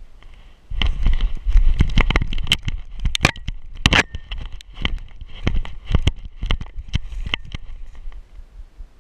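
A dog running and bounding through snow, heard from a camera harness on its back: rapid thumps and knocks with a metallic rattle, starting about a second in and thinning out toward the end.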